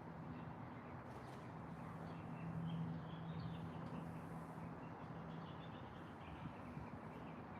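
Faint bird chirps, small and scattered, over a steady low hum and a background hiss.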